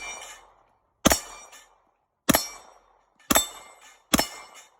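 Four gunshots from a carbine or pistol, fired at a steady pace of roughly one a second, each followed by a short echoing tail.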